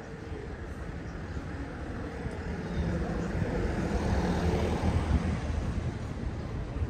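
A car driving past, its engine sound growing to its loudest about four to five seconds in and then fading.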